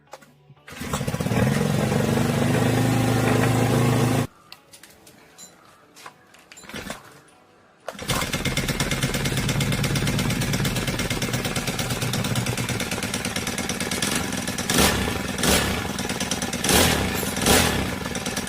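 Honda GX35 four-stroke brush cutter engine running with a metallic ticking noise, like a sieving machine; most likely the valve tappet clearance is out of spec. It runs, stops about four seconds in, and runs again from about eight seconds, with a few short revs near the end.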